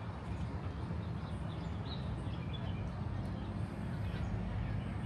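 Outdoor park ambience: a steady low rumble with a few faint, short bird chirps.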